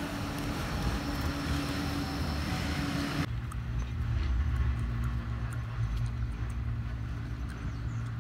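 Traffic on a seafront road and tramway: a passing vehicle's hiss with an on-off hum, then, after an abrupt cut about three seconds in, a steadier low rumble.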